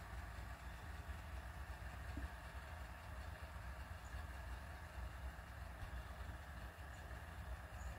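Steady low background rumble with an even faint hiss, unchanging throughout.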